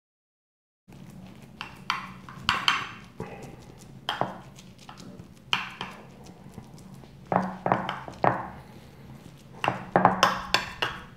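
Dead silence for about the first second, then a metal spoon scraping and clinking against a glass baking dish in irregular strokes as raw ground-beef-and-bulgur kibe mixture is pressed and spread flat. A steady low hum runs underneath.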